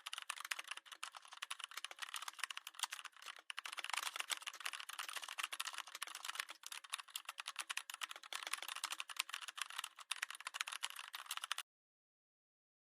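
Dense, rapid, irregular clicking and rattling that stops abruptly near the end.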